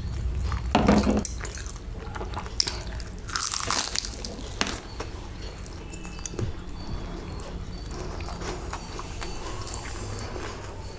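Close-up eating sounds: bites into a fried samosa and chewing, with crisp crunches and small clicks, the loudest bites about a second and three and a half seconds in.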